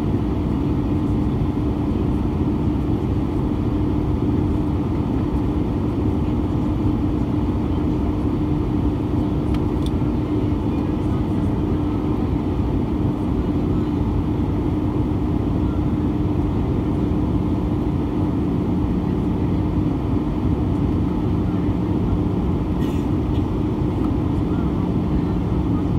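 Steady cabin noise inside an Airbus A320 in flight: the even rush of air and the engines, with a constant low drone that gains a second, lower hum about two-thirds of the way through.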